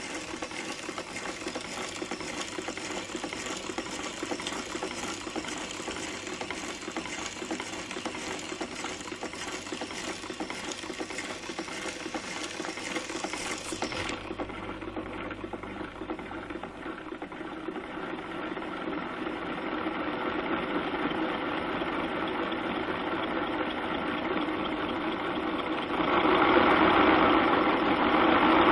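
Home-built model V8 engine driven by electromagnetic coils running, its coil-pulled pistons, rods and contact rollers making a fast, even mechanical running sound. It grows louder through the second half, with a jump in level a couple of seconds before the end.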